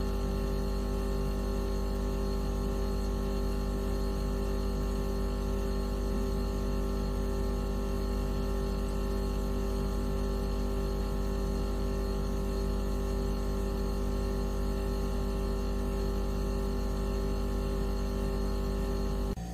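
Steady electronic tone track sold as a mosquito repellent: a deep hum under several fixed higher pitches, unchanging throughout. It cuts over abruptly to a different tone near the end.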